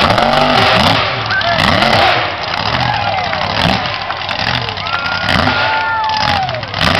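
Mud-bog truck's engine revving hard over and over, pitch climbing and falling in quick surges as it spins its tires through loose dirt. Loudest in the first two seconds, with one longer rev held near the end.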